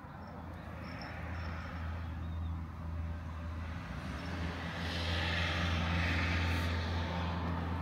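Road traffic: a steady low engine hum, with a passing vehicle's tyre and engine noise swelling to its loudest about five to seven seconds in.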